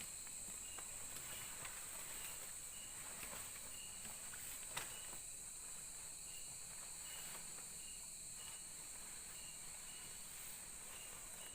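Night insect chorus in tropical forest: a steady high-pitched drone with short, repeated chirps on a lower note, heard faintly. A single sharp click about five seconds in.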